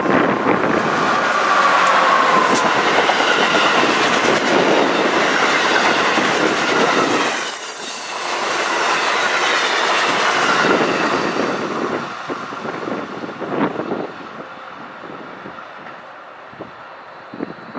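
Loud rumbling, rushing noise with faint high squealing tones, dipping briefly about eight seconds in and easing off after about twelve seconds into quieter noise with a few sharp knocks.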